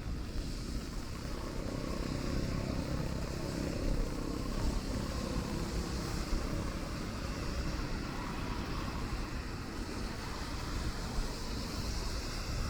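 Rainy city street ambience: a steady hiss of rain and traffic on wet roads over a low rumble, with a vehicle swelling past in the first few seconds.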